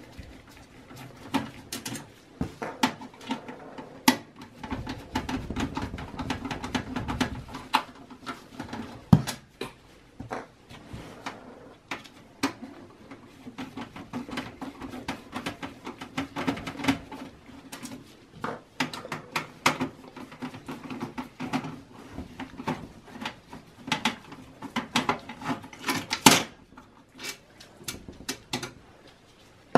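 Phillips screwdriver backing the screws out of a 92 mm rear case fan in a steel PC chassis, with scattered clicks, scrapes and knocks of metal and plastic as the fan is worked loose and lifted out. The sharpest knock comes about 26 seconds in.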